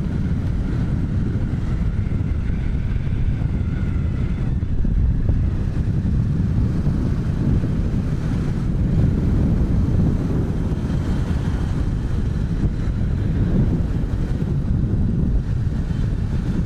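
Bajaj Pulsar 220 motorcycle engine running while riding, under a steady low rumble of wind on the microphone.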